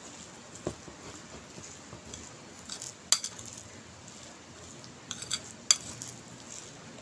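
A spoon stirring a thick oat-and-egg batter in a ceramic bowl, with soft scraping and a few sharp clinks of the spoon against the bowl. The loudest clinks come about three seconds in and again near the end.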